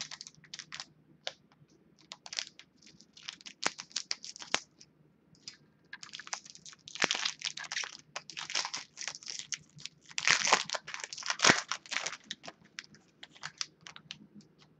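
Scissors snipping into a tight foil trading-card pack, then the foil wrapper crinkling and crackling in bursts as it is pulled open, loudest about ten to twelve seconds in.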